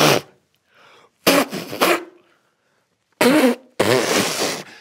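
A man's short, breathy vocal grunts and huffs, about four or five separate bursts with gaps between them, made as he shadowboxes in boxing gloves.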